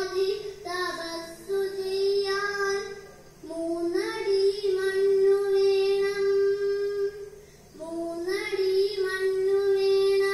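A young girl singing a kathaprasangam song passage solo into a microphone, phrase after phrase, each ending in a long held note, with short breaks for breath. The sound is played back through a television speaker.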